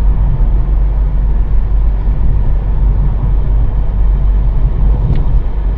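Road and engine noise inside a moving car's cabin: a steady low rumble as the car is driven over a rough mountain road.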